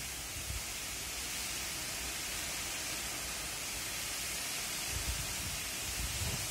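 Steady, even hiss of rain and wind outdoors, with low wind buffeting on the microphone about five seconds in and again near the end.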